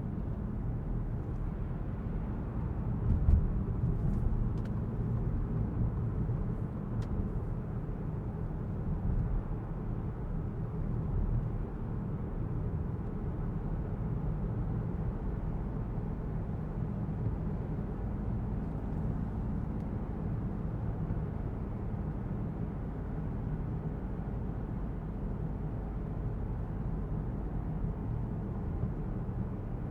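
2023 Citroen C5 Aircross with its 1.5-litre diesel driving along: a steady low rumble of tyres and engine, with a brief thump about three seconds in and a few faint clicks.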